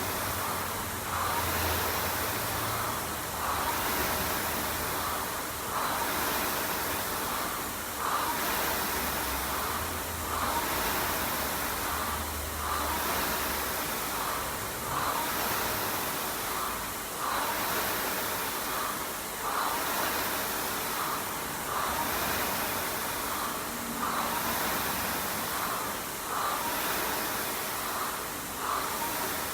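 Air-resistance rowing machine's fan flywheel whooshing in a steady rhythm, surging on each pull about every two seconds during a hard row.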